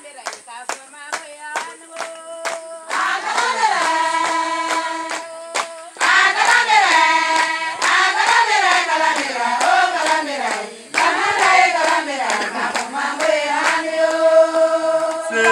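Hand-clapping in a steady beat, joined about three seconds in by a group of voices singing; the singing gets louder about six seconds in.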